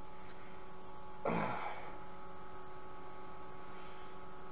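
Steady electrical hum made of several faint constant tones, with one short, sharp breath out about a second in.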